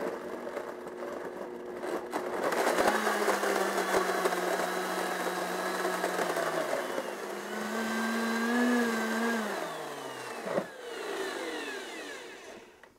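Countertop blender running, pureeing avocado with tomatillos, onion and jalapeño into a smooth sauce. The motor gets louder a couple of seconds in, dips and picks up again midway, then spins down with a falling whine near the end.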